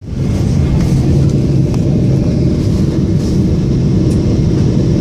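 Steady, loud low roar of a Boeing 777's jet engines and airflow heard inside the passenger cabin at a window seat, with a few faint ticks.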